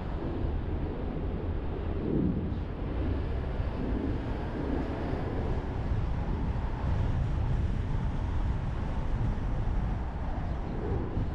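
Traffic and road noise from a car driving through city streets, picked up by a camera mounted on the outside of the car: a steady low rumble of tyres and engine that swells a little now and then.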